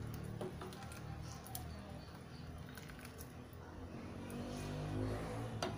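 A ladle stirring and scooping thick creamy soup in a stainless steel pot, with soft wet sloshing, a light knock about half a second in and a sharper knock near the end.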